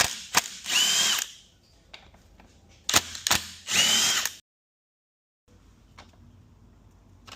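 Cordless power driver running in two short bursts about three seconds apart, backing bolts out of a transmission case. Each burst is led by a couple of sharp clicks and carries a brief rising whine.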